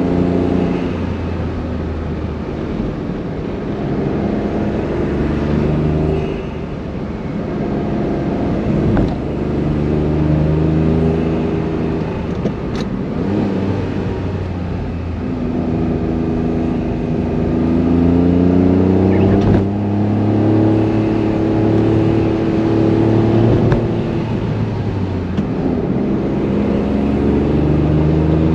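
Honda S660's small turbocharged three-cylinder engine and exhaust pulling hard uphill, its pitch climbing and then dropping several times as it is run through the gears of its manual gearbox.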